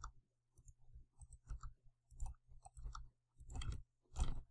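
Faint, irregular clicks and taps from a computer mouse and keyboard at a desk, some in quick clusters, over a steady low electrical hum.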